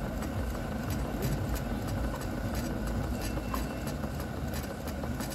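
Live-steam model engines running: a steady rhythmic ticking, about three beats a second, over a continuous low rumble.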